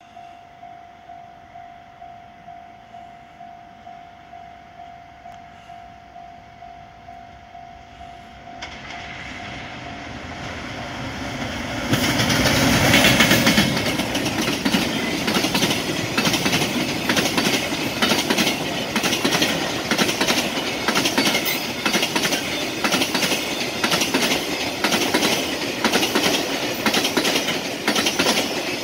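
Level-crossing warning bell ringing about twice a second as a freight train hauled by an EF510 electric locomotive approaches, its noise growing. From about twelve seconds in the train passes close by, loud, its container wagons clattering over the rail joints.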